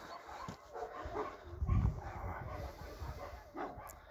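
A dog barking, with a brief low rumble a little before the halfway point.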